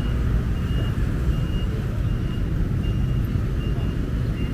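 A vehicle's reversing alarm beeping steadily, a short high beep about every three-quarters of a second, over the low rumble of street traffic and engines.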